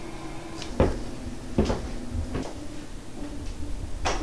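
Three dull thuds, evenly spaced under a second apart, then a louder thud near the end, over a faint steady low hum.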